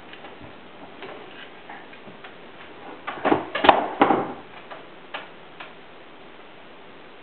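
Light clicking and tapping, with a quick flurry of louder clicks and knocks about three to four seconds in and a few single clicks after.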